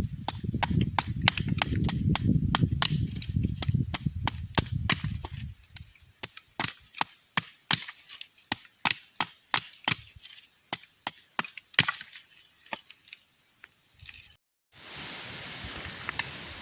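A rapid series of sharp, wood-like clicks and cracks, about two to three a second, over a steady high-pitched hiss; a low rumble underneath fades out about five seconds in, and the sound drops out briefly near the end.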